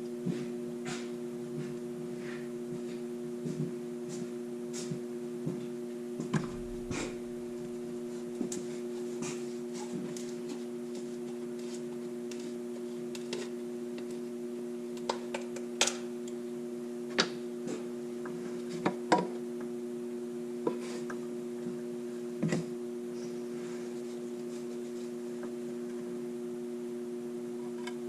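A steady electrical-type hum holds throughout, with scattered short clicks and knocks from hand work, a few louder ones in the second half.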